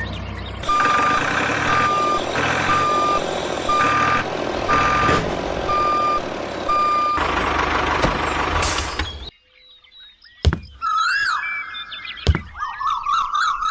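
Truck reversing alarm beeping at a steady pitch about once a second over a running engine, followed by a hiss of air near 8 seconds in. After a short lull, gliding whistle-like tones come in near the end.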